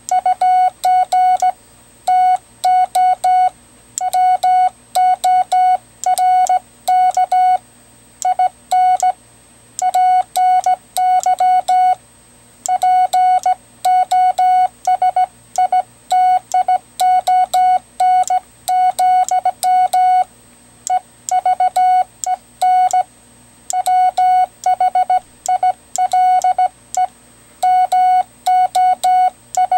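Morse code sidetone: a single-pitch beep keyed on and off in quick dots and dashes by a semiautomatic "bug" telegraph key (WB9LPU GoBug), sending plain-language text, with a sharp click at the start of many of the tones.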